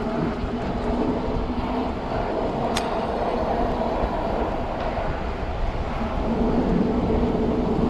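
Wind and road rumble on a body-worn action camera while riding an e-bike through city traffic, with a single sharp click about three seconds in.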